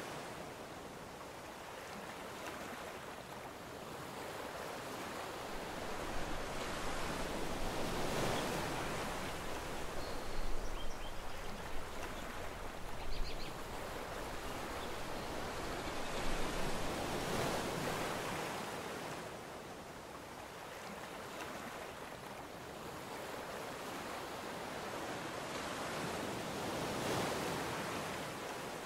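Ocean surf breaking on the shore: a steady noisy wash that swells and fades about every nine seconds. A few low bumps on the microphone near the middle.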